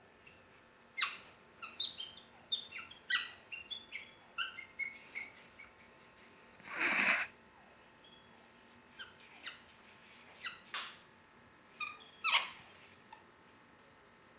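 Bird chirping in short, sharp descending notes, repeated in quick runs and then more sparsely, over a steady high insect drone. A loud, short breathy burst comes about seven seconds in.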